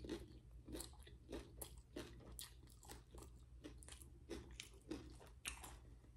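A person chewing crunchy food, with faint short crunches about twice a second over a steady low hum.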